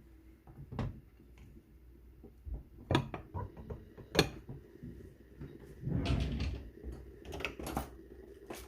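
A few knocks and clatters of kitchen items being handled: separate sharp knocks about 3 and 4 seconds in, and a short run of clattering around 6 seconds in.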